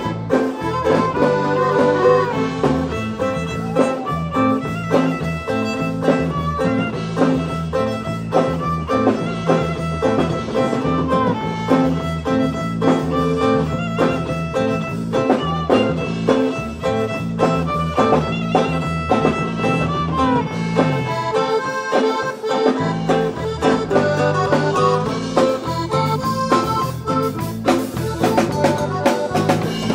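Live waila band playing a cumbia: button accordion leading, with violin, five-string electric bass and drum kit keeping a steady dance beat. The bass drops out briefly about two-thirds of the way through, then comes back in.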